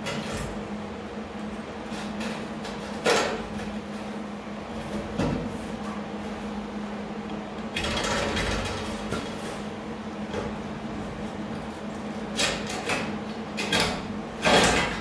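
Hands working a sheet-steel rocker panel repair section into place: scattered knocks and clanks of metal, with a longer scraping stretch about eight seconds in, over a steady low hum.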